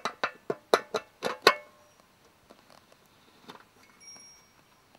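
Metal fuel tank cap of a small petrol engine pump being screwed onto the filler neck: a quick run of sharp metallic clicks over the first second and a half, then a few faint ticks.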